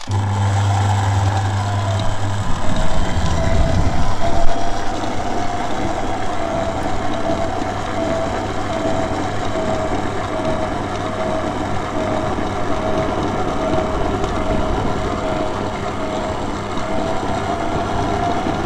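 Electric stand mixer switched on and running steadily, its paddle beater turning through dry bicarb soda to blend in dye for bath bombs. Motor hum and a steady whine, with a deeper hum for the first couple of seconds.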